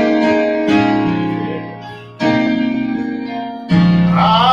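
Yamaha Motif XF8 keyboard playing sustained chords, four struck in turn, each fading away before the next. Near the end a voice starts singing over it.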